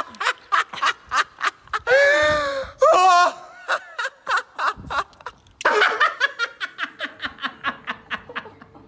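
Two men laughing heartily in quick ha-ha-ha pulses. The first draws out one long, held laugh about two seconds in. After a short pause just before the halfway mark, the second man starts laughing in rapid pulses that fade toward the end.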